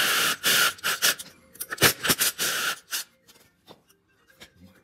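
Cordless drill running a spade bit into plywood in several short bursts, boring a recess so a bolt head can sit flush. It stops about three seconds in, followed by a few faint clicks.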